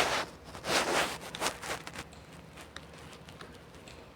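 Paper rustling as the pages of a book are turned, with a few soft swishes in the first two seconds and then light ticks of handling.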